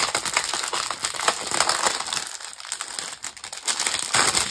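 Strip of small plastic bags of diamond painting drills crinkling and crackling as it is handled and unfolded, with dense irregular crackles that ease a little about halfway through.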